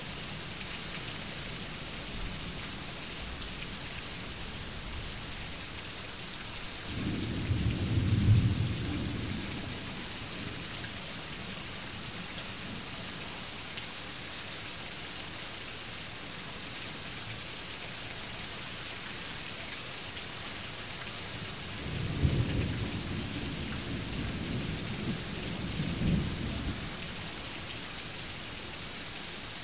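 Steady rain falling, with two low rolls of thunder: the louder one about a quarter of the way in, and a longer one starting about three quarters in that swells twice before fading.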